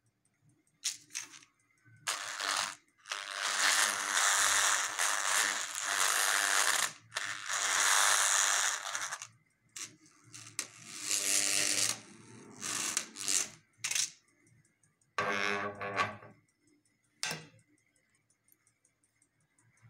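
Steel strip buzzing and rattling against a two-coil electromagnet, in harsh bursts of one to four seconds separated by short quiet gaps.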